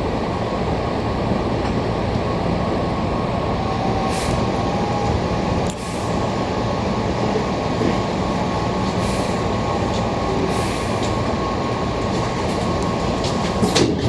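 Hankyu 6000 series electric train running slowly alongside a station platform, heard from inside the driver's cab: a steady rumble of running noise with a faint steady tone, and a few sharp clicks near the end.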